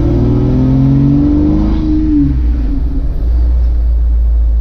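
A 2000 Jeep Cherokee XJ's 4.0-litre straight-six is driving under acceleration, its pitch climbing, then dropping away about two seconds in, leaving a steady low rumble.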